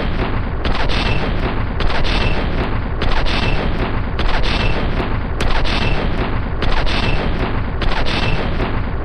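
M2 Browning .50-calibre heavy machine gun firing continuously on automatic. The loud run of shots has a pattern that repeats about every 1.2 seconds.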